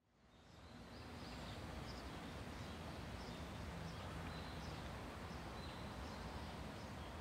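Faint outdoor ambience fading in over the first second: a steady hiss with small high bird chirps repeating about once a second.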